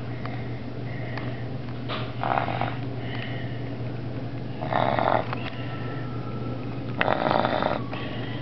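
A sleeping boy snoring, three snores about two and a half seconds apart, each lasting about half a second.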